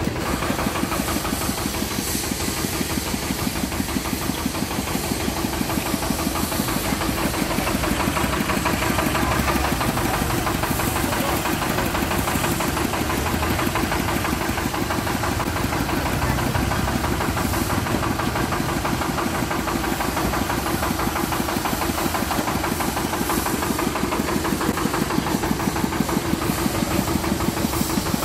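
Motor of a roadside sugarcane juice extractor running, with a fast, steady knocking rhythm.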